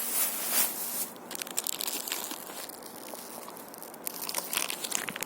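Crinkling, rustling and crackling of plastic food packaging being handled and pulled open, a dense run of small clicks and crackles.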